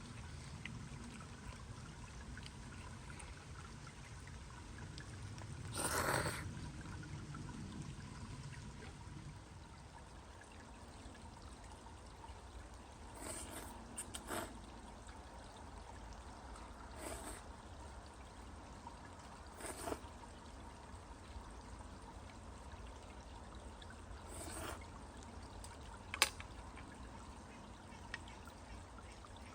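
Steady trickle of running water, with a few brief louder noises scattered through it, the sharpest a short click near the end.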